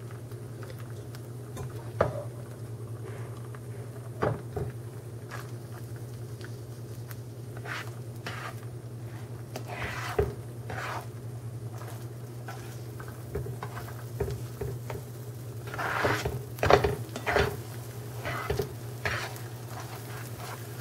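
Silicone spatula scraping and tapping in a nonstick skillet as setting scrambled eggs are pushed around and broken up, with scattered scrapes and knocks that come thicker in the last few seconds, over a steady low hum.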